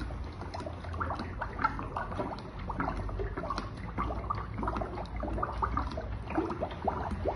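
A ladle stirring thick homemade soap mixture of frying oil and caustic soda in a basin, making irregular wet squelches and slops.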